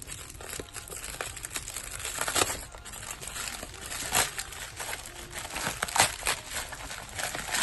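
Packaging crinkling and tearing as a parcel is opened by hand, a continuous rustle with a few louder crackles.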